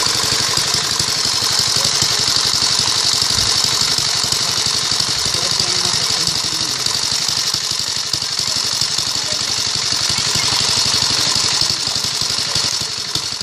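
An engine running steadily at an even idle-like speed, with a constant hiss over it.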